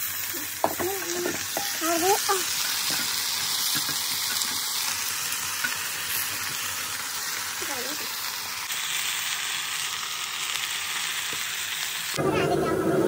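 Sliced potatoes frying in hot oil in a wok with a steady sizzle, with a few clanks and scrapes of the pan in the first couple of seconds as they go in.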